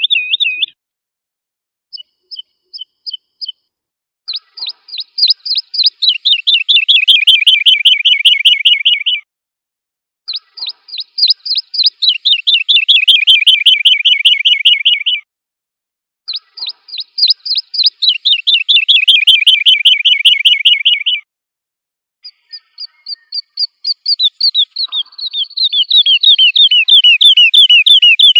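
Woodlark singing: four phrases of repeated fluty notes with gaps of about a second between them. Each phrase starts with slow, high notes, then speeds into a rolling trill that drops in pitch and lasts several seconds.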